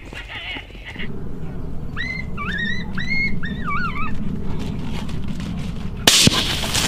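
A run of about six short, high yelping calls over a low steady rumble, then a single sudden rifle shot about six seconds in.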